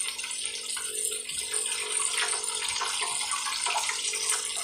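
Chicken waffle balls frying in hot oil: a steady sizzle with small crackles and pops as they cook through.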